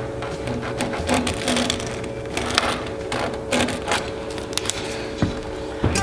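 Pencil scratching along a steel square on a wooden board, marking a cut line in a series of short strokes.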